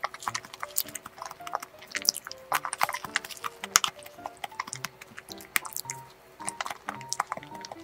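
Eating sounds: a plastic spoon clicking and scraping in a clear plastic cup of cream cake, with many small wet clicks of chewing and mouth sounds, over soft background music.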